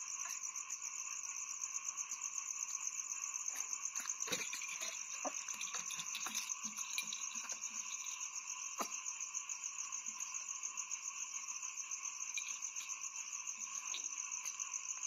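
A steady night chorus of calling insects and frogs, droning at several high pitches with a fast, even flutter, and a few faint knocks and clicks scattered through it.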